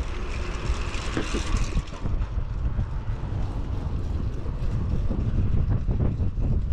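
Wind rushing over a GoPro camera's microphone on a moving bicycle, a heavy low rumble with road noise, growing choppier in the second half.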